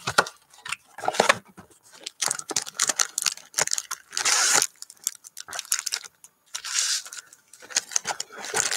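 Cardboard box flap being torn open and foil trading-card packs crinkling and sliding against the cardboard as they are pulled out by hand: a string of irregular rustles and scrapes, loudest about four and a half seconds in.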